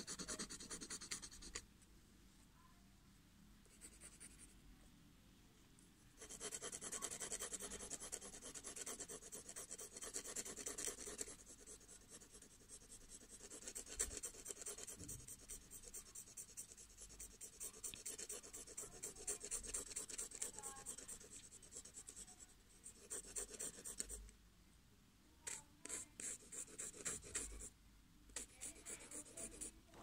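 Pencil scratching on paper in fast back-and-forth shading strokes, with a pause of a few seconds near the start and short separate strokes near the end.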